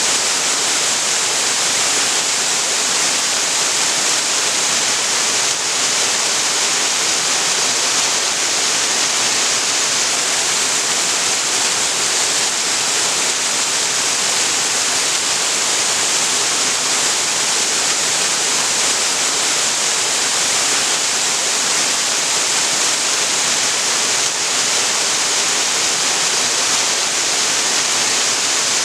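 Waterfall on a creek, falling water making a loud, steady rushing hiss with no change over the whole stretch.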